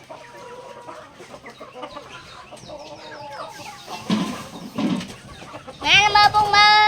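Backyard chickens clucking, with a string of small calls and one loud, long call near the end.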